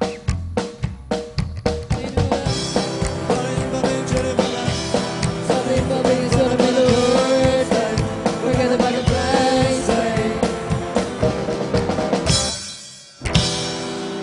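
Live band music: drums and upright bass keep a steady beat, then electric guitar and the full band come in about two seconds in. The music breaks off about 13 seconds in, and after a single hit different music starts.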